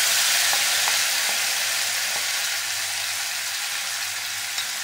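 Onion, tomato and dried-prawn mixture sizzling in hot oil in a non-stick pan as it is scraped in with a spatula. A steady frying hiss that eases a little, with a few faint clicks of the spatula.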